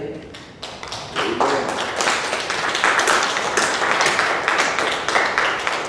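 A congregation applauding: scattered claps swell about a second in into steady applause of many hands.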